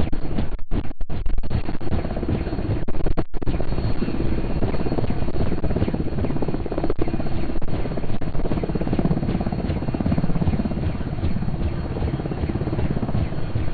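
Bell 206 JetRanger helicopter hovering low just after lift-off, its single turbine running and the rotor blades beating in a fast, steady chop. The sound cuts out briefly twice in the first few seconds.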